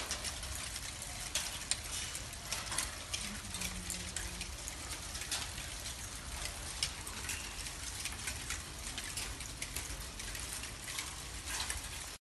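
Volcanic lapilli, small stones and cinders, falling on roofs and a tiled balcony: a dense, irregular pattering of small ticks and clicks over a steady hiss, like a shower of hail or rain.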